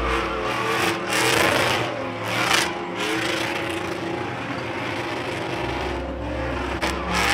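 GMC pickup truck's engine revving hard while it does a burnout, tyres spinning on asphalt, with surges of wheelspin noise about one and two and a half seconds in.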